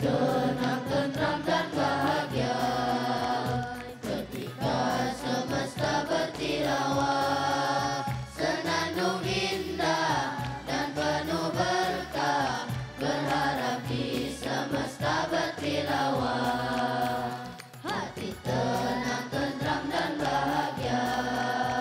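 Boys' choir singing an Indonesian Islamic song over musical accompaniment, with the lines "Hati tenang tentram dan bahagia" and "Senandung indah nan penuh berkah".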